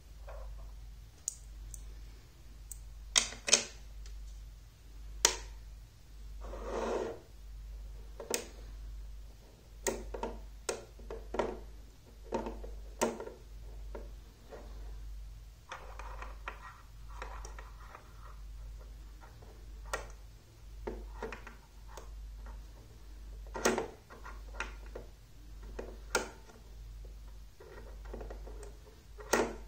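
Magnetic rods and metal balls clicking together as pieces snap into place on a magnet construction, with irregular sharp clicks, some in quick clusters, and a few brief scraping slides of metal on metal.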